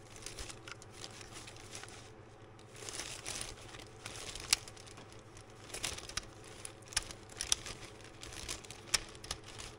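Plastic packaging bag crinkling and rustling as a wiring harness with plastic connectors is handled, with scattered small sharp clicks.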